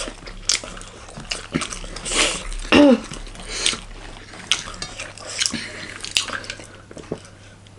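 Close-miked eating sounds: wet chewing and lip smacks with scattered short clicks. About three seconds in comes a brief pitched mouth sound that bends in pitch, the loudest moment.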